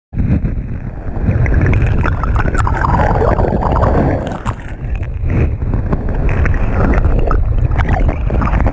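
Sea waves washing over a camera lying at the water's edge: a loud, muffled churning rumble of surf, full of small crackles as the water surges through coral rubble.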